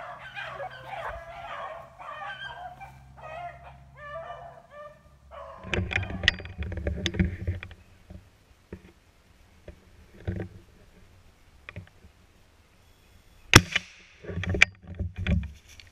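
A pack of rabbit beagles baying on a running rabbit for the first five seconds or so. Then rustling and handling noise as the hunter moves through cover, with one sharp, loud crack near the end.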